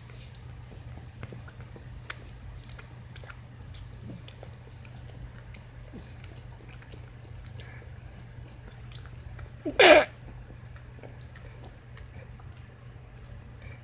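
A sleeping puppy makes small, quick, wet smacking and suckling clicks with her mouth, as if nursing in a dream. About ten seconds in, one short, loud, pitched sound stands out.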